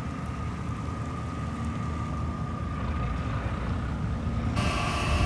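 Steady low rumble of a boat's diesel engine idling at the dock, with a faint steady whine above it. A little before the end it changes suddenly to louder, fuller machinery noise with hiss.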